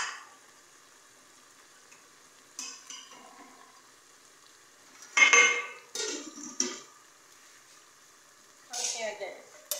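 A spoon stirring chopped vegetables in an aluminium cooking pot, in a few short bursts of scraping and clattering against the pot, the loudest cluster about five seconds in.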